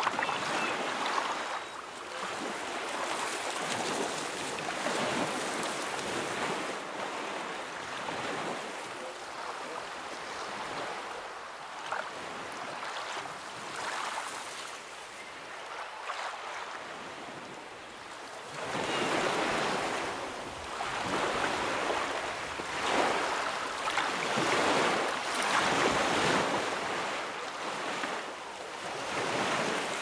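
Ocean surf rushing and washing as waves break. It stays softer through the first half, then grows louder in the second half with swells every second or two.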